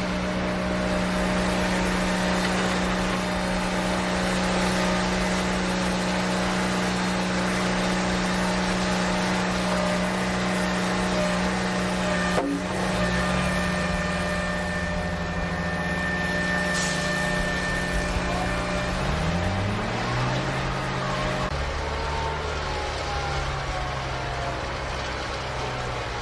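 A steady pitched engine hum. Near the end its pitch slides and then settles lower, and there is one sharp click about halfway through.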